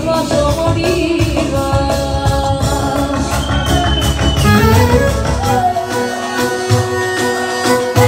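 Live Albanian çiftetel dance music played by a band: a bending, ornamented clarinet melody over a driving drum and bass beat, with some singing. The deep beat drops out about six seconds in.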